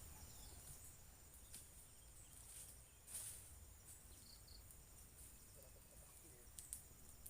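Faint forest ambience: a steady, high-pitched insect trill, with a couple of brief soft hissy sounds about three seconds in.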